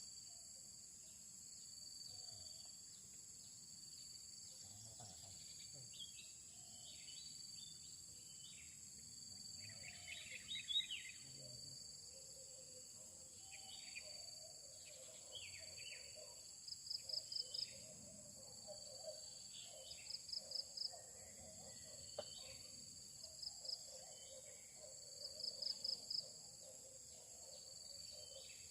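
Outdoor natural ambience: insects keep up a steady high drone while birds chirp here and there. A short, rapid pulsed call repeats every few seconds in the second half and is the loudest sound.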